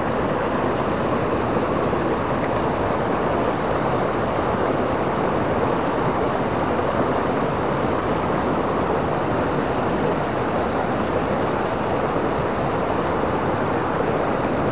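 Mountain torrent running over rocks and a small cascade: a steady, even rush of water.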